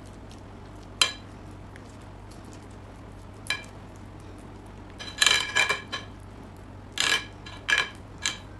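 Metal spoon clinking and scraping against a glass baking dish while spreading cheese over flatbread: single sharp clinks about a second in and a few seconds later, then a quick run of clinks, and three more near the end.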